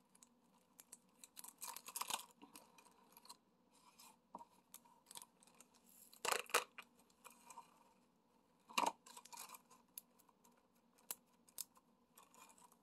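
Diamond painting worked by hand: irregular small clicks, taps and scratchy rustles of the drill pen and resin drills on the canvas and tray, with two louder clacks about six and nine seconds in.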